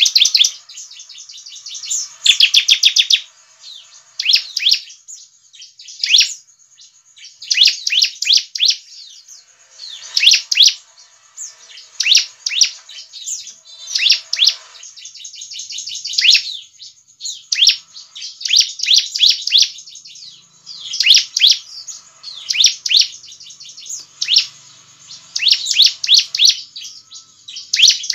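Bar-winged prinia (ciblek) calling: repeated bursts of rapid, high chirping notes, each burst up to about a second long, coming every second or two.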